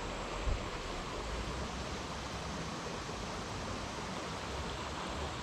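Steady rushing of a creek's flowing water, with a brief low thump about half a second in.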